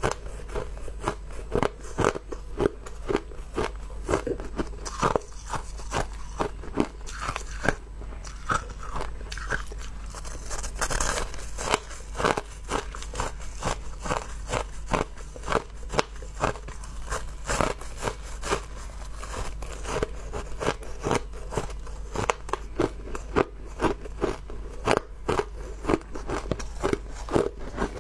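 Clumps of crushed ice being bitten and chewed close to the microphone: a fast run of sharp, crisp crunches, about two a second, over a steady low hum.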